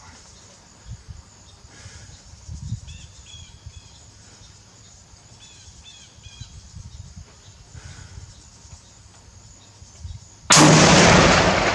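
A single rifle shot about ten and a half seconds in: a sudden loud report that rolls on and fades slowly. Before it, only a low rumble and a few faint bird chirps.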